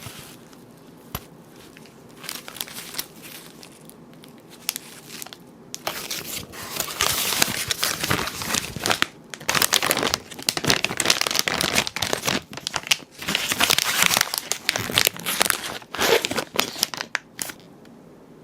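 Crinkly packaging being handled, crumpled and torn open by hand. It is quiet at first, then comes in dense bursts through most of the second part before stopping near the end.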